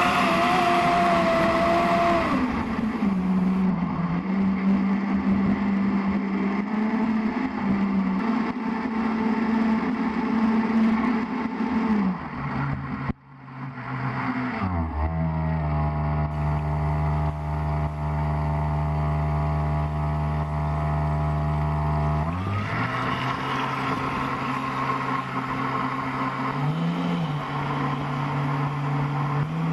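Electric boat motor running on a 4S battery and whining as the throttle changes. Its pitch rises at the start and holds, then cuts out briefly about halfway. It runs as a lower, steady hum with strong overtones for several seconds before the pitch rises again near the end.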